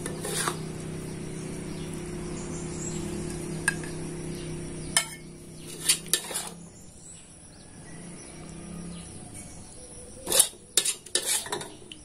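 Metal spatula scraping and clinking against a steel wok as cooked sambal is scooped out onto a plate, a few sharp scrapes in the middle and a quick cluster near the end. A steady low hum runs underneath and fades out about nine seconds in.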